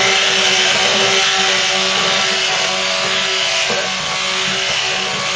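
Stick blender running on high, its motor whirring steadily while submerged in hot-process soap batter of oils and lye solution. The batter is still at the unblended, curdled stage and has not yet come together.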